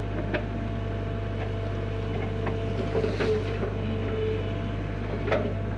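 Hyundai HX85A excavator's diesel engine running steadily, with a few light knocks, the sharpest about five seconds in.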